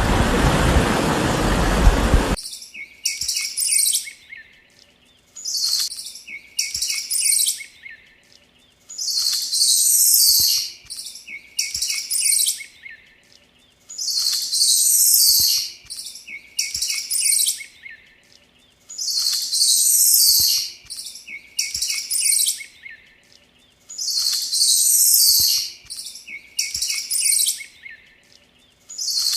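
A loud rushing noise cuts off about two seconds in. Then a bird chirps in a repeating pattern: a louder burst of high chirps about every five seconds, with quieter chirps in between.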